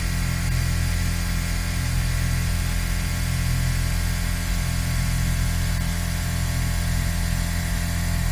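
Exechon XMini machine tool robot surface-milling titanium: the spindle and cutter run in a steady drone with several constant tones.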